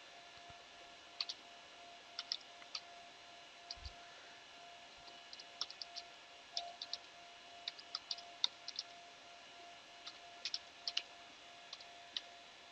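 Faint computer keyboard keystrokes, typed irregularly in small runs, over a low steady background hum.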